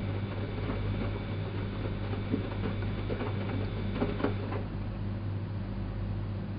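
2005 Elin WM26AAA washing machine running: a steady low hum with scattered light clicks and knocks, and a thin high whine that stops about four and a half seconds in.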